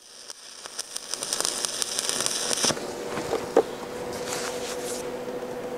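Stick welding arc crackling and sizzling steadily as a 1/8-inch E316L-16 electrode lays a fillet weld on 316L stainless plate at 100 amps DC electrode positive. A steady hum sits under the crackle from about halfway.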